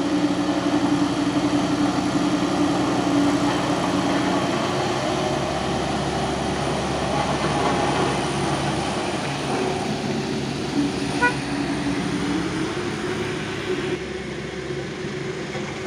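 Road roller's diesel engine running close by while a small pickup truck drives past. There is a short vehicle horn beep about eleven seconds in.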